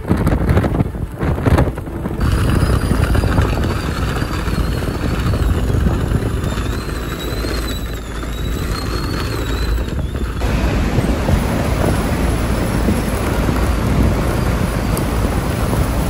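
Wind gusting hard over the microphone on an exposed ridge, a loud, rough rushing noise at a reading of about 70 mph. A faint wavering high whistle runs through the middle.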